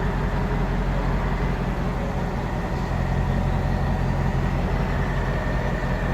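Mercedes S55 AMG's supercharged 5.4-litre V8 idling steadily, with a faint steady high tone above the engine. The recording is from when the failing alternator was making the car smoke and smell of burning plastic.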